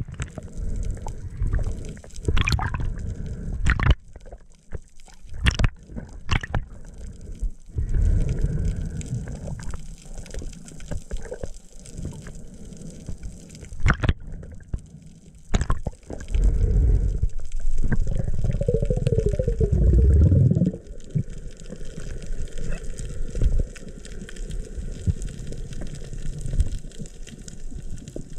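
Water sloshing and splashing around a free diver at the surface, with sharp knocks, then the muffled underwater sound of the dive. A little past halfway a loud low gurgling rush lasts about four seconds.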